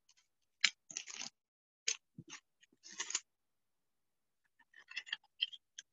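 Cardboard blaster box being opened and foil-wrapped trading-card packs handled: short crinkles, crackles and taps in a cluster over the first few seconds, a pause, then another cluster near the end.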